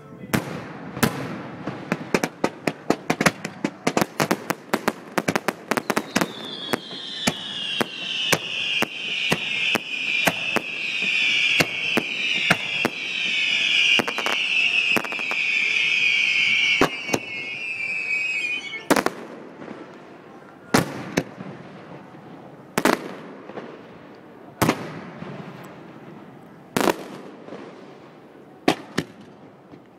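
Fireworks going off in a rapid string of sharp bangs and crackles. From about six seconds in, many high whistles slide down in pitch over the bangs and stop suddenly near eighteen seconds. After that, single loud bangs come about every two seconds.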